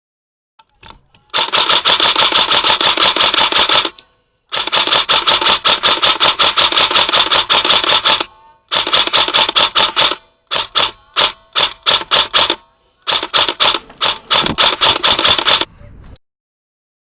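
Airsoft electric gun firing on full auto, very rapid clicking with a gearbox whine under it. It fires three long bursts of a few seconds each, then a string of short bursts under a second long, and stops near the end.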